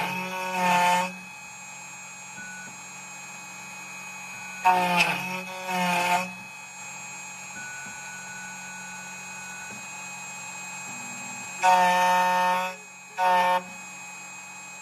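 Steady low machine hum from the CNC key cutting machine, broken four times by loud horn-like electronic tones: two two-part tones with sliding pitch in the first half, then a longer steady tone and a short one about three-quarters of the way in.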